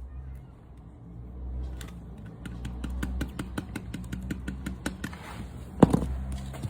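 Small air compressor running steadily with a quick clicking rattle, about six clicks a second, for a few seconds, and a sharper knock near the end: a tyre being inflated after a nail-hole plug repair.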